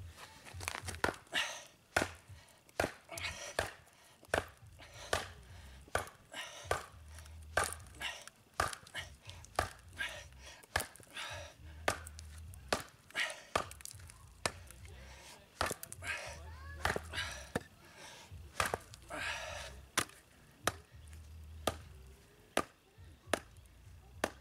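Becker BK9 bowie knife chopping into hard wood: a long run of sharp strikes, roughly one a second at an uneven pace, with short splintering noises between some of them.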